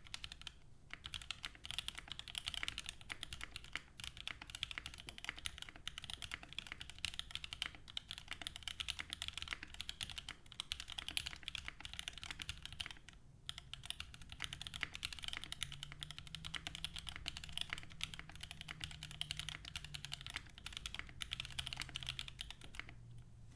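Steady typing on a 65% top-mount mechanical keyboard with Cherry MX Black linear switches (Kailh stems swapped in) and GMK Laser keycaps, a fast run of key clacks with short pauses about a second in and around halfway through.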